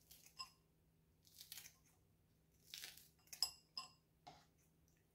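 Faint, scattered snips and clicks of kitchen scissors cutting a breaded chicken finger into pieces, about six short sounds spread through a near-quiet stretch.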